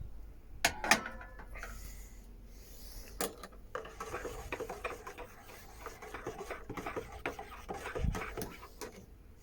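Things being handled at close range: a few sharp knocks with a brief ringing about a second in and again around three seconds, then steady rubbing and small clicking.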